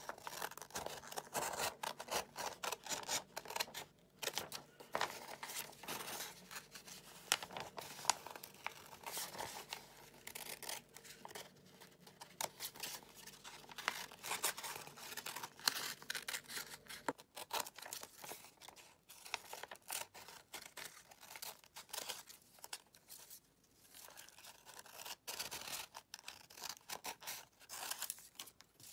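Scissors cutting out shapes from sheets of paper: a long run of quick, irregular snips.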